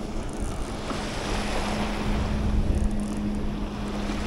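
Wind on the microphone over small waves lapping at the shore, with the steady hum of a distant boat engine across the bay.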